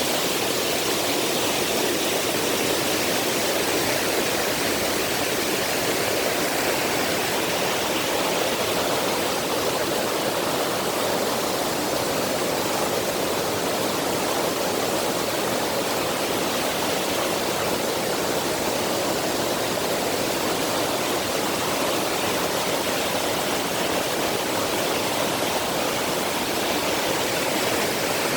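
Mountain valley stream rushing steadily, a constant even rush of water with no breaks.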